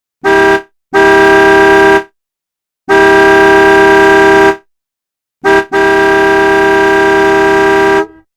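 Car horn honking five times: a short toot, a one-second honk, a longer honk of about a second and a half, another quick toot, then a long blast of over two seconds.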